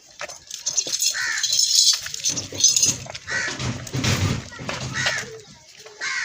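Farmyard animal calls mixed with people's voices: short, varied calls come and go, with a busier, lower stretch about halfway through.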